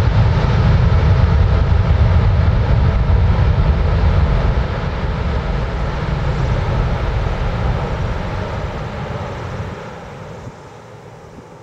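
Boeing 787-8's Rolls-Royce Trent 1000 engines running loud in reverse thrust on the landing rollout, a deep steady rumble. It eases off from about halfway and falls away sharply near the end as the thrust comes back.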